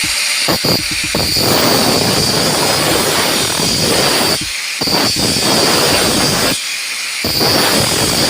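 Angle grinder cutting the steel cable tray: a loud, harsh hiss over a steady high whine, stopping briefly twice as the cut is made in short passes.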